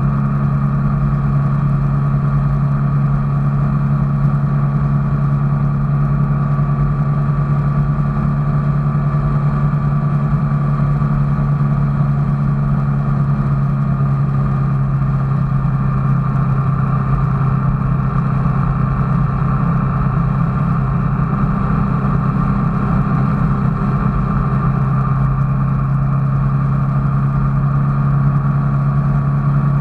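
Steady engine drone of a motor vehicle running at an even pitch.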